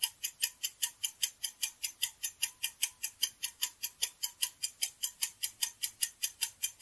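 Clock-ticking countdown sound effect: a steady run of sharp ticks, about four to five a second, marking the quiz answer timer running down.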